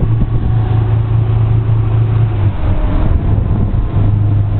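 Motorboat engine running steadily under way, a low hum over a rush of wind and water; the hum drops away for a moment about halfway through, then returns.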